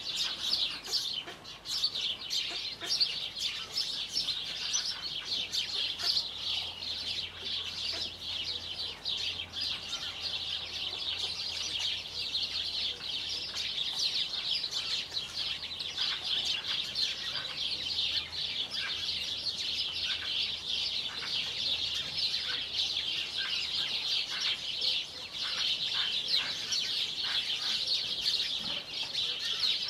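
A dense, continuous high chirping of many small birds, with Marans chickens clucking now and then under it.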